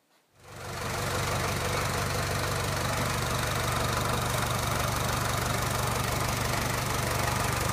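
Land Rover Series 2a diesel engine idling steadily with diesel knock, its injector pump timing just advanced a little. It comes in about half a second in.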